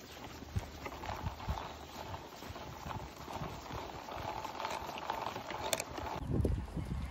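Footsteps on asphalt as a person walks a small dog on a leash: irregular light taps of shoes and the dog's booted paws. About six seconds in, the sound changes abruptly to louder, deeper thumps.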